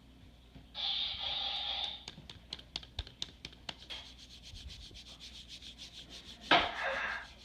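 Hatchimal electronic toy making a harsh, breathy rasp through its small speaker, then a quick run of clicks and a sudden louder burst near the end. These are the noises its owners heard as obscene.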